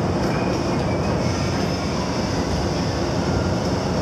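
Steady, loud mechanical rumble of the research ship's deck machinery hauling in the seismic airgun array, with a few faint, short squeaks.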